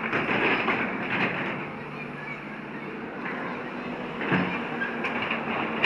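John Deere excavator's diesel engine running steadily under work, with a few louder noisy rushes rising over it during the first second and a half and again about four seconds in.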